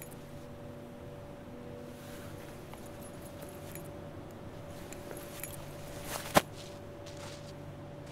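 A low steady hum under faint rustles and soft clicks, with one sharp click, the loudest sound, about six seconds in.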